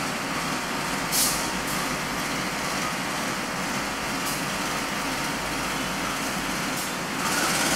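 Diesel locomotive idling steadily as it stands at the head of a train, with a short hiss of air about a second in and two fainter hisses later.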